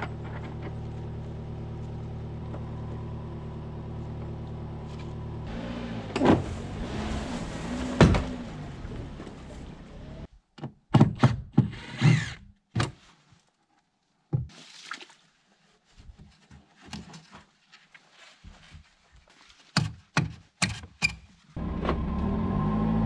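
A vehicle engine idling with a steady hum, shifting in pitch about six seconds in with two sharp knocks. Then a string of separate knocks and thuds with near quiet between them as a tow strap is rigged on a wooden barge, and the engine hum returns near the end.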